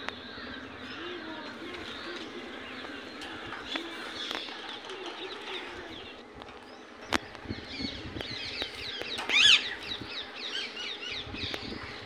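Indian ringneck parakeets chattering with many short chirps and warbles, rising to one louder screeching call about nine and a half seconds in. A single sharp click about seven seconds in.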